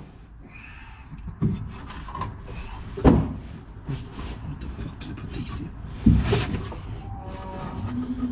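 Workshop handling noises: parts and tools being knocked, rubbed and scraped while fitting parts in a car, with a louder thump about three seconds in and another about six seconds in.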